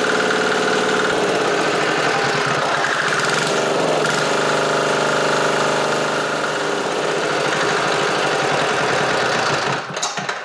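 Chinese-made 196cc 168F single-cylinder air-cooled diesel engine running steadily on its first start, running well, its speed shifting about a second in and again about four seconds in. Near the end it is shut off and coasts to a stop with a few separate knocks.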